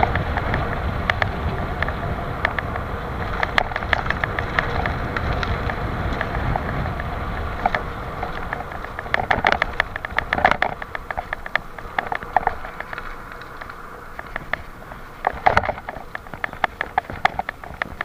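Wind buffeting the microphone on a fast downhill on a gravel bicycle, over a steady patter of sharp rattles and clicks as the bike jolts across a rough, potholed road under braking. The wind rumble eases in the second half, while the rattling goes on, in thick clusters twice.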